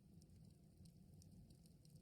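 Campfire burning faintly: many small, sharp crackles scattered over a low, steady rumble of the flames.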